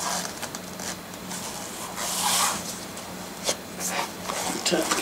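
Hands gripping and rubbing along a worn bicycle tyre on its wheel: a soft scuffing about two seconds in, then a few light clicks near the end.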